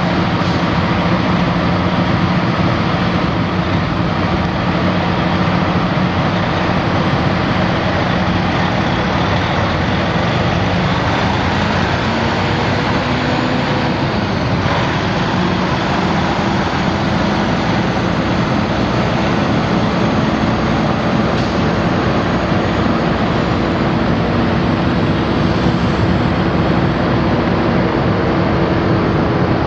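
Detroit Diesel Series 60 14.0-litre inline-six turbo diesel in a Freightliner Columbia semi truck, running at a steady speed with no revving.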